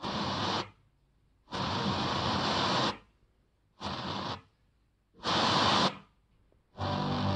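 FM radio hiss between stations from a car head unit converted into a home radio, tuned by hand. It comes in five short bursts of static, cut to silence in between as the tuner steps through the band.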